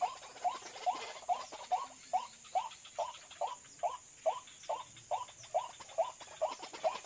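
White-breasted waterhen calling: one short, curved note repeated over and over at about two and a half a second, in a steady monotonous series.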